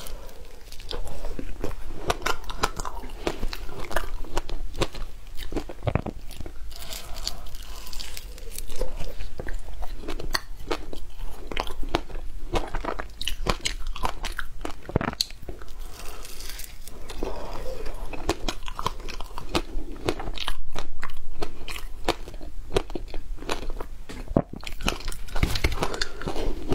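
Biting and chewing a block of packed, frozen shaved ice: dense crisp crunching and crackling as the ice breaks between the teeth, with a louder run of crunches about twenty seconds in.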